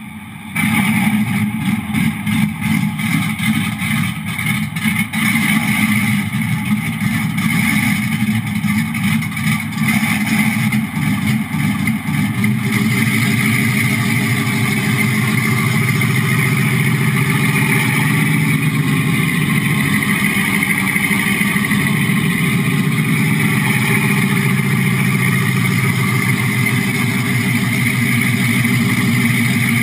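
Tank engine sound effect played by a Model Sounds Inc. SFX6 sound module through the speaker of a 1/6-scale Armortek Sherman RC model. It comes on suddenly at the start, runs unevenly for about the first dozen seconds, then settles into a steady, continuous run.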